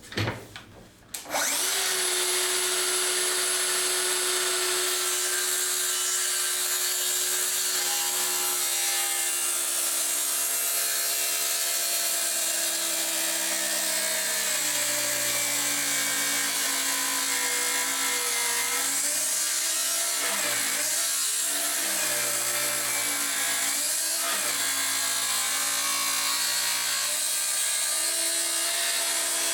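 Festool HKC 55 cordless circular saw starting about a second in and cutting through wood, its motor note sagging and wavering under load through the middle of the cut and picking up again near the end. The saw is working hard on a 45-degree bevel plus 45-degree mitre compound cut.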